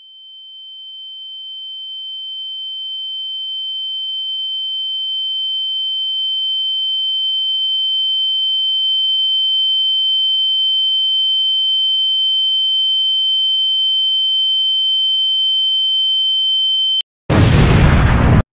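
A single steady high-pitched electronic tone, a pure sine beep, swelling slowly louder for about seventeen seconds and then cutting off suddenly. It is replaced near the end by a loud explosion sound effect lasting about a second.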